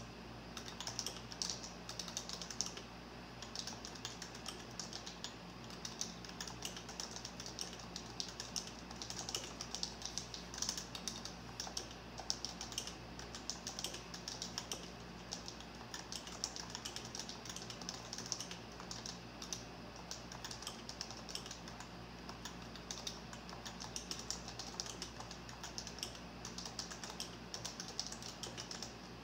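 Continuous fast typing on a computer keyboard: a dense, irregular stream of key clicks and bottoming-out taps, over a faint steady low hum.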